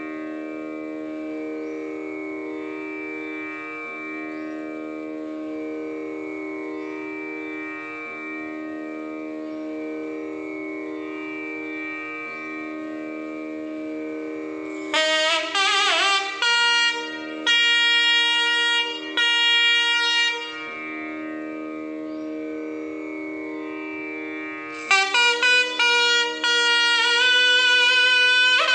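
A steady shruti box drone, over which a nadaswaram enters about halfway through with loud phrases of an alapana in raga Bowli (Bauli), gliding between notes; it falls silent for a few seconds and comes back in near the end.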